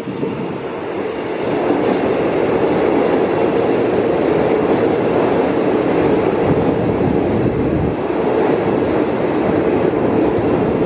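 Electric passenger train crossing a steel truss rail bridge: a steady rumble of wheels on rails that builds over the first second and a half and then holds.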